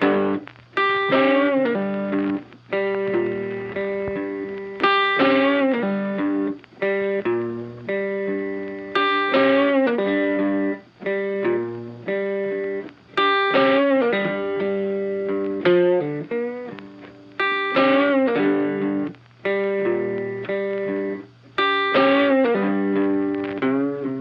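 Background music: a guitar playing a repeating chord phrase, each chord struck sharply and left to ring, the phrase coming round about every four seconds.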